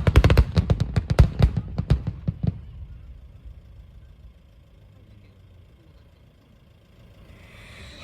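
Fireworks bursting in a rapid run of sharp cracks and bangs that thins out over the first two and a half seconds and dies away to a low rumble. Music begins near the end.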